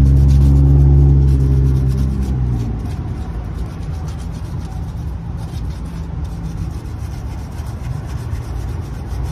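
Sandpaper rubbing by hand over peeling paint on a garden statue, feathering off the loose paint. A vehicle engine drones loudly at first and fades out after about two seconds, leaving a low traffic rumble under the rubbing.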